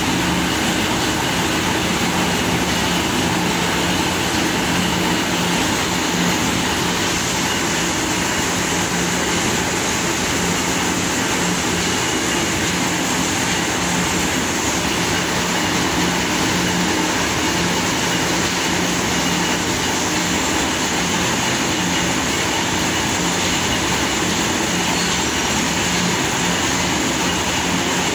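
Corn mill machinery running: a loud, steady mechanical din with a low hum under it.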